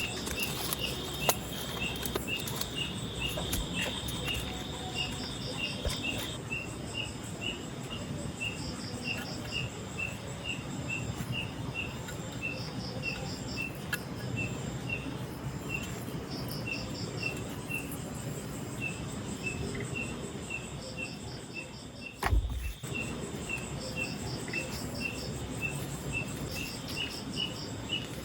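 Insects chirping in a steady rhythm, about two short chirps a second, with a second insect's higher pulsed trills coming and going over a steady background hiss. A brief low thump about 22 seconds in.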